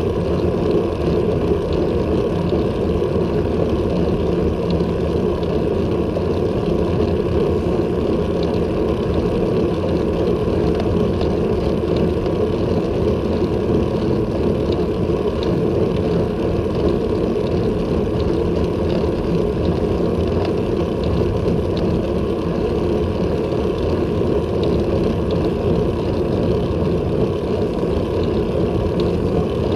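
Steady rushing wind and road noise on the microphone of a handlebar-mounted action camera on a road bike riding at about 19 km/h.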